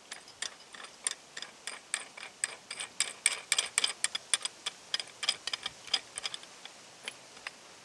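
Irregular run of light, sharp metallic clicks and ticks, several a second and busiest in the middle, from small metal parts of a mini milling machine being handled and adjusted.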